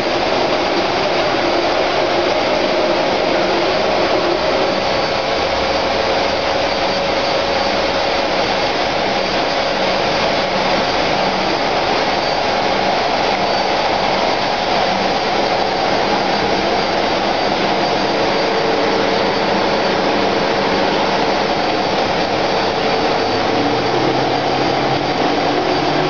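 Plastic strand pelletizer running, its rollers and cutter making a loud, steady whir with no let-up.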